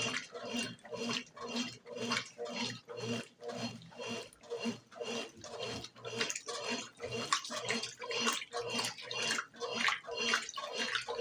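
Brastemp BWG11 top-loading washing machine agitating a load of bed and bath linen: water sloshing in even pulses about twice a second over a steady motor hum.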